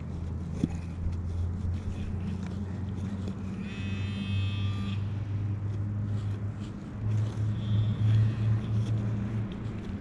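A steady low engine drone that grows louder and pulses near the end. A brief high buzzing tone sounds about four seconds in.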